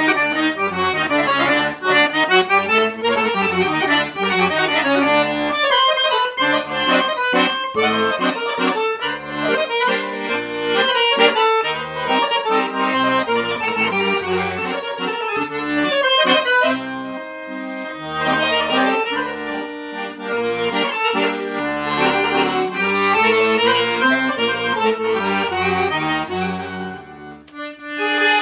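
Solo accordion playing a melody over low bass notes, the notes changing steadily; it dips briefly near the end and then comes back on a held chord.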